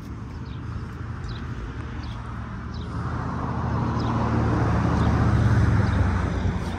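Car engine and road noise, growing louder to its loudest about five seconds in and then easing off.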